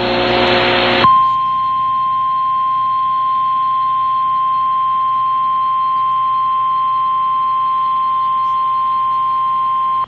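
Emergency Alert System attention signal for a Severe Thunderstorm Warning, relayed on TV: about a second of loud hiss, then a single steady high tone, the 1050 Hz weather-radio alert tone, held for about nine seconds and cut off sharply at the end.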